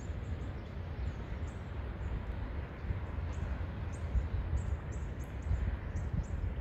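Wind buffeting the microphone over a steady outdoor hiss, with birds chirping again and again in short, high notes.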